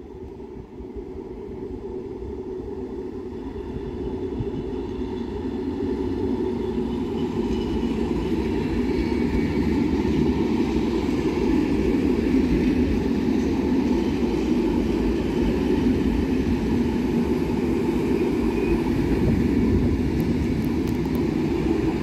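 NMBS electric multiple unit passing close by: a steady rumble of wheels on the rails that grows louder over the first several seconds as the train draws near, then holds.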